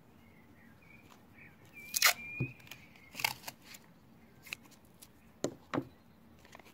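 Masking tape pulled off the roll, a thin squeal ending in a sharp rip about two seconds in, then scissors snipping the strip a second later. Two light knocks on the wooden table near the end.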